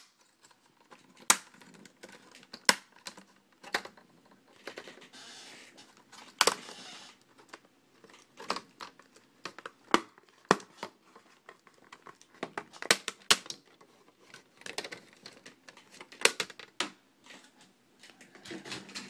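Plastic snap clips of a Dell Inspiron 1440 laptop's screen bezel popping loose as the bezel is pulled off the display lid by hand: sharp, irregular clicks and snaps, with a stretch of scraping plastic about five seconds in.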